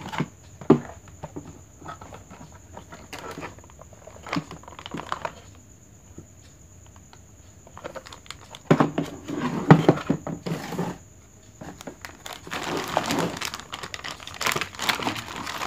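Packaging being handled as a parking sensor kit is unpacked: scattered sharp clicks and knocks, then two longer spells of crinkling and rustling about halfway through and near the end.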